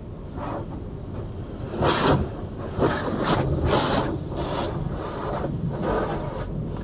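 Car-wash water spray hitting the car's windshield and body, heard from inside the cabin as a hiss that comes in bursts. The loudest burst is about two seconds in, followed by several shorter ones, over a low rumble.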